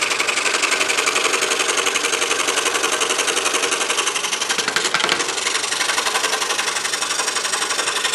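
DeWalt scroll saw running with a fresh Olson No. 5 blade, cutting through a stack of three boards. It makes a steady, rapid chatter, with a brief dip about five seconds in.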